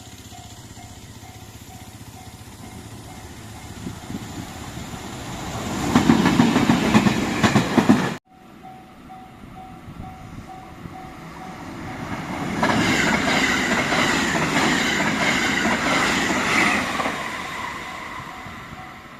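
A Japanese level-crossing warning bell dings rapidly and evenly while a JR Kobe Line electric train approaches and passes, its wheels clattering loudly over the rail joints. After a sudden cut the bell rings again, and a second train passes for several seconds with a higher-pitched tone over the rumble.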